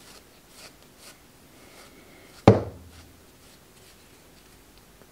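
Faint brushing and rubbing of hair being backcombed with a wooden paddle brush, broken once about halfway through by a single sharp knock with a brief low ring.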